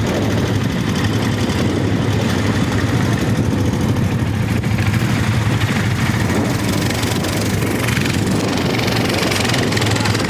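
Motor vehicle engine running steadily while riding, a loud even drone.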